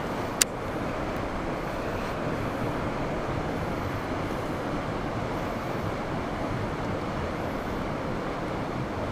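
Steady outdoor background noise, an even rumbling hiss, with one sharp click about half a second in.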